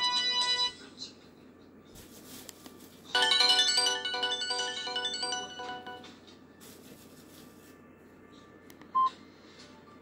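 Built-in MIDI ringtones of a Samsung GT-E1195 flip phone previewing through its small speaker. One melody cuts off under a second in, a second melody starts about three seconds in and fades out around six seconds, and a single short beep sounds near the end.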